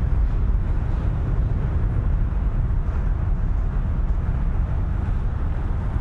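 Steady low rumble of outdoor ambience with no distinct events.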